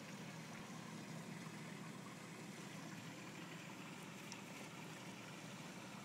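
Steady faint background hiss with a low steady hum underneath, and a brief faint high tone about four seconds in.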